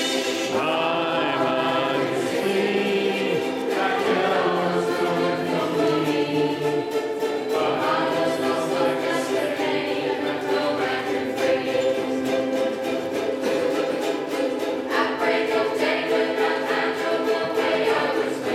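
A ukulele ensemble strumming a song together in steady rhythm, with a group of voices singing along.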